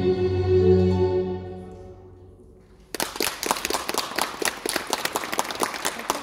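Accompaniment music for a rhythmic gymnastics hoop routine fades out over about three seconds as the routine ends, then audience applause starts suddenly and continues.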